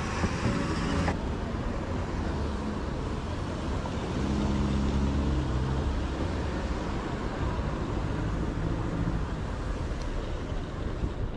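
Road traffic: a steady rush of passing cars, with one vehicle's engine hum coming up louder about four to five seconds in.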